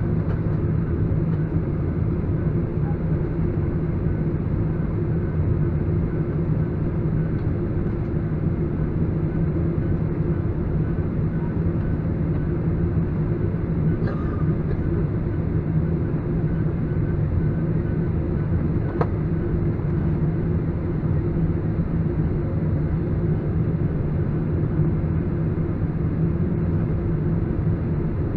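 Steady low rumble and hum inside an airliner cabin as the jet taxis on the ground.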